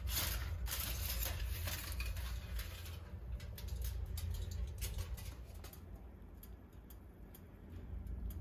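Light clicks, taps and rustling of kitchen handling, thickest in the first second and thinning out later, over a steady low hum.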